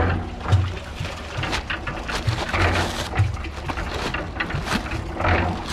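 Electric cement mixer running with a steady low hum, under the rustling, scraping and knocking of a paper bag of cement being split open and handled.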